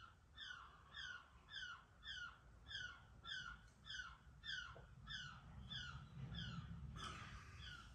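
Faint animal call: one short, high, falling note repeated evenly about twice a second, roughly thirteen times.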